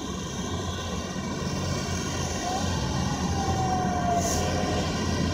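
Steady rumble of road traffic that grows slowly louder, with a faint whine that slowly falls in pitch near the middle.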